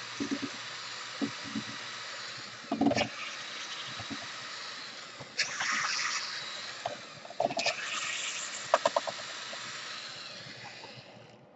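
Clicks and knocks of a laptop being handled and taken apart with hand tools, over a steady hiss that cuts off abruptly near the end.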